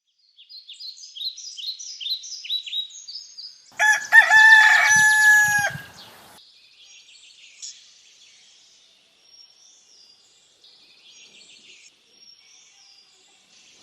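A rooster crows once, loud and drawn out for about two seconds, starting about four seconds in. Before it, a small songbird sings a run of quick falling high notes, and faint high birdsong carries on after it.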